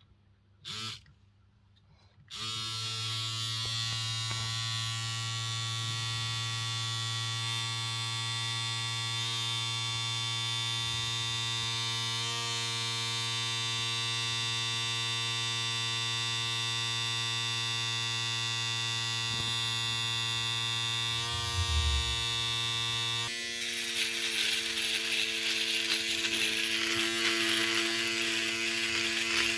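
Electric shaver switched on after a short click, then buzzing steadily. Near the end the buzz changes to a rougher, noisier sound.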